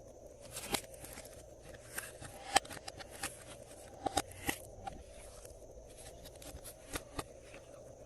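Glossy slime being worked by hand, giving scattered short sharp clicks and pops, several in quick succession a little past the middle.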